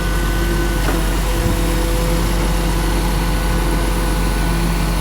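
A vehicle engine idling: a steady, even hum with a low rumble.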